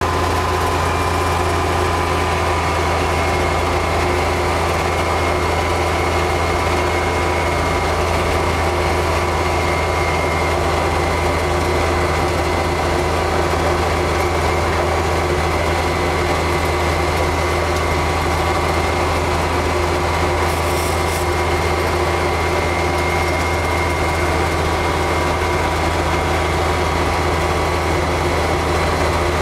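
The diesel engine of a 2004 John Deere X595 garden tractor runs steadily under load, driving its 47-inch front-mounted snow blower through deep snow. A low engine drone carries a steady higher whine.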